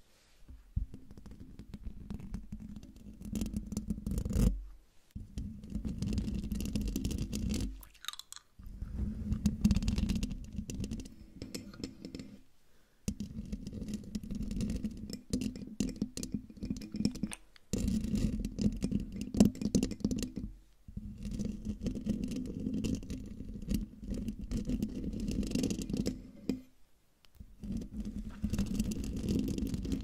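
Long fingernails scratching the metal mesh grille of a silver condenser microphone right at the capsule: dense, scratchy rasping in passes of a few seconds each, with brief pauses between them.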